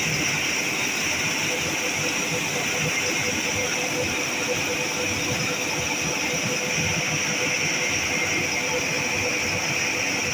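A machine running steadily: a constant hiss with a steady hum underneath.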